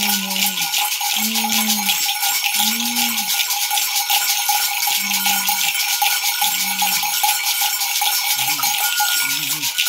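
Two gourd rattles (maracas) shaken fast and steadily, with the metal bells tied to them jingling and ringing along. Under the rattling, a low voice chants a short phrase about once a second.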